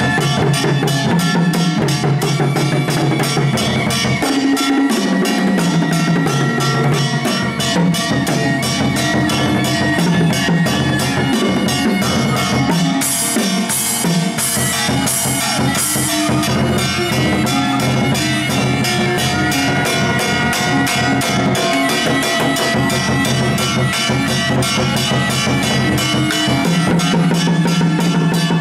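Fast stick drumming on a set of painted barrel drums with a cymbal, played along with other pitched instruments; four cymbal crashes come in quick succession about halfway through.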